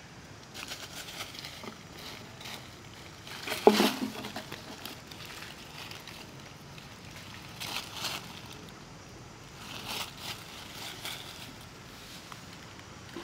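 Dry leaf litter crackling and rustling in several short bursts as a small monkey and a person's hand move over it, the loudest crunch about four seconds in.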